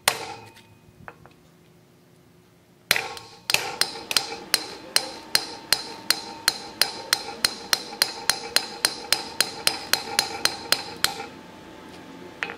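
Hammer tapping a chisel set in the scored groove of a .999 silver round on an anvil, splitting it into quarter pieces. One strike, a pause, then from about three seconds in an even run of taps, about three a second, each with a short metallic ring, stopping about a second before the end.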